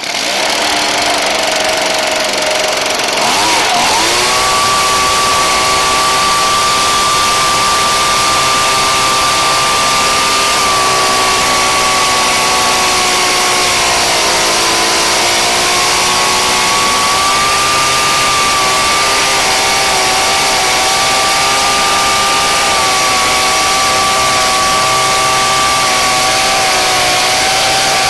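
Ryobi backpack blower's small gas engine running at speed after a quarter-turn carburettor adjustment. It rises to a steady pitch a few seconds in, sags and recovers about halfway through, then holds a slightly lower speed. The owner blames the engine's trouble on a clogged muffler.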